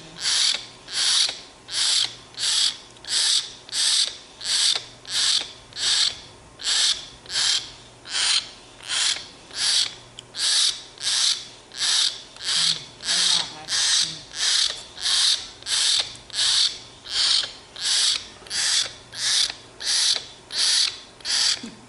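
Young myna giving harsh, hissing begging calls over and over, about three every two seconds without a break, as it begs to be fed bread.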